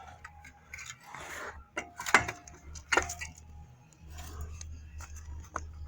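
Metal tools and loose metal pieces clinking and knocking, with a few sharp clanks about two and three seconds in, amid light scraping and rustling.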